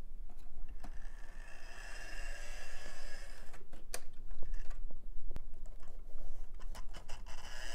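Vintage model train locomotive running on track: a thin, high electric-motor whine that fades in and out, over a low hum, with a few sharp clicks.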